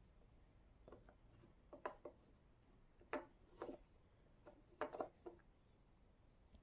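Faint quick taps and rustles of fingers pressing paper cut-outs onto a cardboard paper roll, in four short clusters about a second apart.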